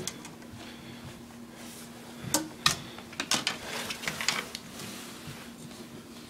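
Handling noise from a metal tape measure held out along wooden kitchen cabinets: a few sharp clicks and knocks with some rustling, over a faint steady hum.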